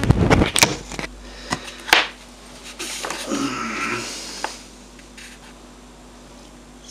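Camera handling: a few sharp knocks and clicks in the first two seconds as the camera is moved and set down on a desk, then a faint steady hum.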